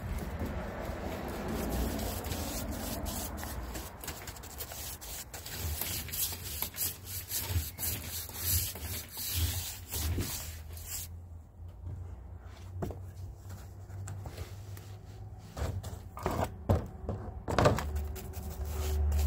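Deck stain applicator pad on a pole rubbing back and forth over wooden deck boards, with a few sharp knocks near the end.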